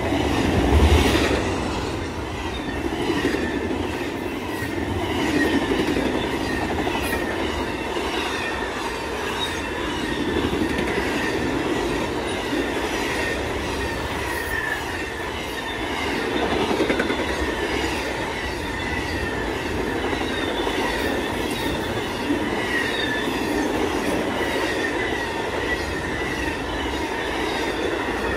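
BNSF intermodal Z train's double-stack container well cars and trailer flatcars passing at speed: a steady rolling rumble of steel wheels on rail, loudest about a second in.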